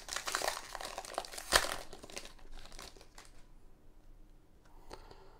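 Plastic wrapper of a 2020 Donruss football card pack crinkling as it is handled and opened, with one sharp crackle about a second and a half in. The crinkling dies down after about three seconds, leaving only faint handling.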